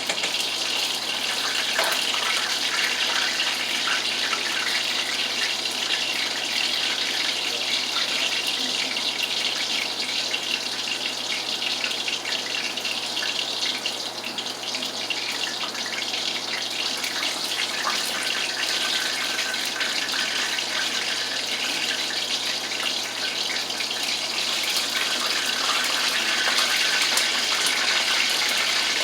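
Kitchen tap running steadily.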